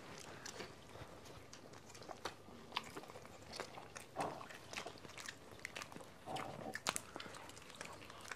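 Faint close-miked chewing and biting of pizza, with scattered small wet clicks and crackles and two short muffled mouth sounds, about four and six seconds in.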